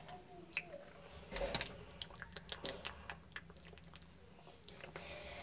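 Faint, scattered small clicks and taps at irregular intervals, with a brief faint voice sound near the start.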